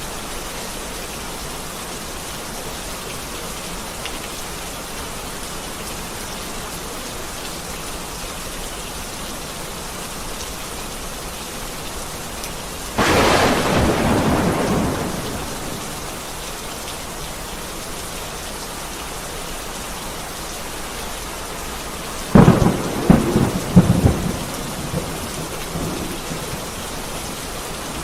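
Heavy rain falling steadily, with thunder: about halfway through a sudden thunderclap that fades over a few seconds, and near the end a loud cluster of sharp cracks.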